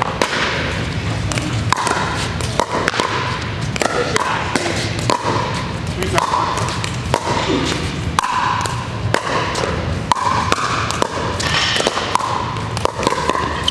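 Pickleball paddles striking a plastic ball, with many sharp pops at irregular intervals and ball bounces on the court; hits from neighbouring courts overlap.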